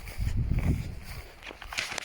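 Footsteps and rustling on a trail, with a low rumble on the microphone in the first second and light crackling near the end.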